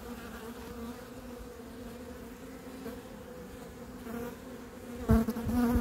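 Buckfast honeybee colony buzzing in an opened hive, a steady low hum. The colony is disturbed by the frames being lifted out. The hum swells louder about five seconds in, with a couple of low knocks.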